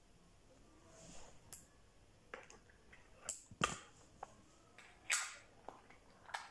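Scattered small clicks, taps and brief rustles as makeup items are handled and rummaged for in a zippered makeup bag. The sharpest click comes about three and a half seconds in, and a short hissing rustle follows about five seconds in.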